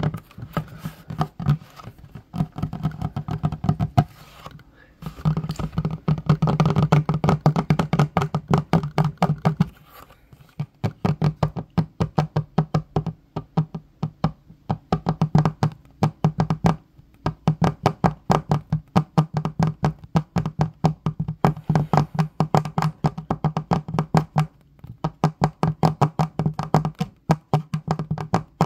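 Fingertips and fingernails tapping quickly on a wooden tabletop, a fast run of taps that stops briefly every few seconds and starts again.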